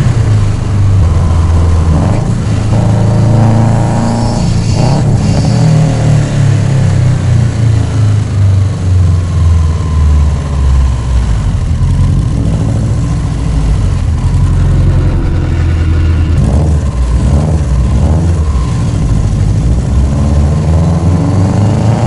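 Turbocharged Subaru flat-four engine and exhaust under way on the road, the note rising and falling as the car accelerates, lifts and shifts gears. It runs with a large exhaust leak at the turbo still unfixed, and is heard both inside the cabin and at the tailpipe.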